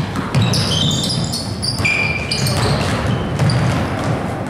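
A basketball dribbled on a hardwood gym floor, with sneakers squeaking: a flurry of short, high squeaks in the first couple of seconds as players cut on the court.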